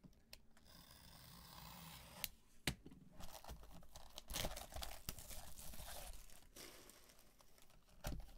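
Plastic wrapping being torn and crinkled as a sealed trading card box is opened, with a few sharp clicks and snaps along the way.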